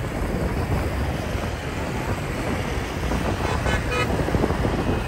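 Wind rushing over the microphone and road and traffic noise while riding among motorbikes, with one short horn beep about three and a half seconds in.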